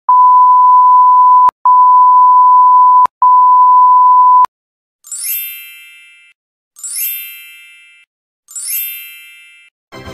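Beep sound effect: three long, steady, mid-pitched beep tones of about one and a half seconds each, separated by brief gaps. Then a bell sound effect: three bell dings about a second and a half apart, each ringing and fading away.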